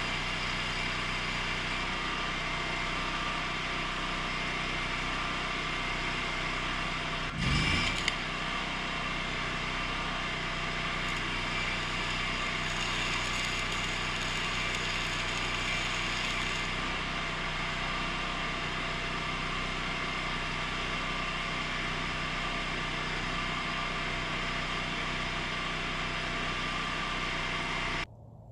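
Steady machine running noise: an even hiss with a hum of several steady tones. A brief louder low rumble comes about seven and a half seconds in, and the sound cuts off abruptly near the end.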